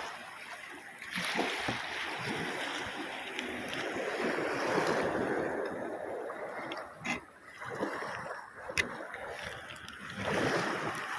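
Shallow seawater sloshing and splashing, rising and falling in swells over several seconds, with a couple of sharp clicks near the end.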